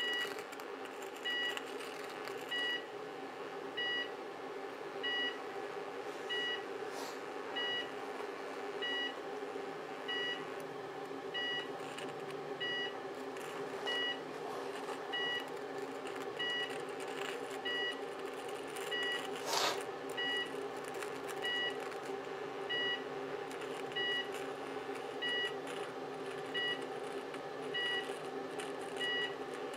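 Two microwave oven transformers wired in series, humming steadily while the overvolted cooker switch arcs and burns. A short electronic beep repeats evenly, a little under once a second, and there is one sharp snap about twenty seconds in.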